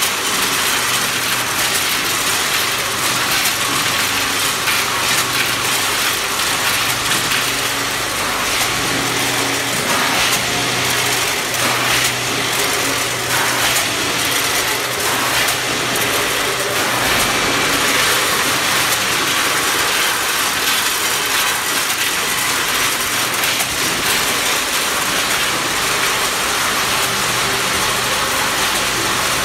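Frozen-bean packing line with a multihead weigher and conveyors running: a steady, loud factory din with a constant low hum and a dense rattle of machinery.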